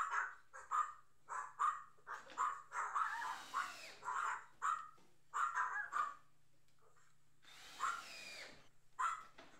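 A dog barking repeatedly in short barks, one or two a second, with a pause near the end. Under the barks, a cordless drill/driver drives screws into cedar siding in two spells of about a second, one about three seconds in and one near eight seconds, its motor whine rising and falling.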